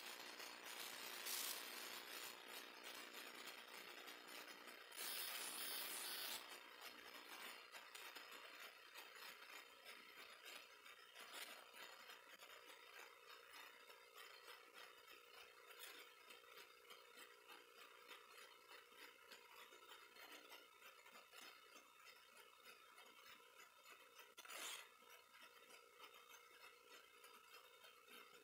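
Near silence: faint room tone, with a few brief soft noises, the longest about five seconds in.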